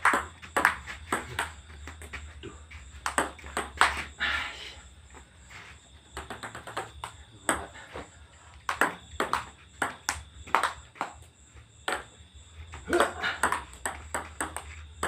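Table tennis ball clicking on a board table top and off paddles in rallies: sharp ticks in quick runs broken by short pauses.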